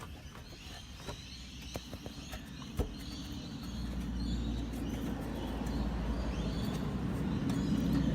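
A car engine running, its low hum growing louder from about three and a half seconds in, with birds chirping and a few light knocks.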